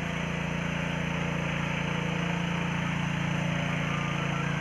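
A motor-driven water pump running steadily, draining the pond. It makes an even, unchanging drone.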